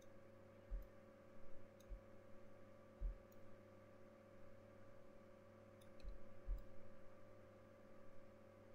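Faint steady electrical hum, with about five soft, irregular low thumps and a few faint high clicks.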